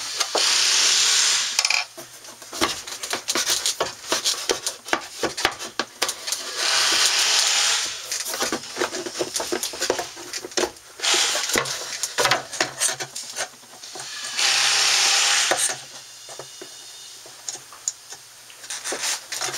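Cordless screw gun backing screws out of a panel in several bursts of about a second and a half each, with a rasping grind, and clicks and knocks of handling in between.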